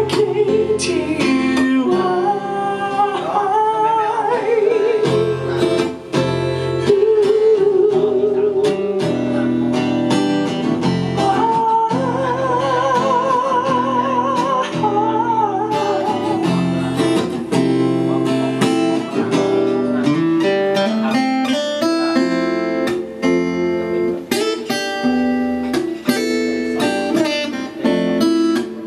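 A man sings, accompanying himself on a strummed steel-string acoustic guitar. His voice holds long notes with a wide vibrato around the middle, over steady rhythmic strumming.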